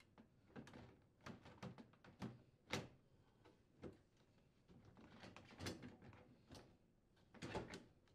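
KitchenAid refrigerator's plastic freezer drawer being worked onto its metal slide rails: a quiet string of light clicks and knocks, with a few sharper knocks about a third of the way in, past the middle and near the end.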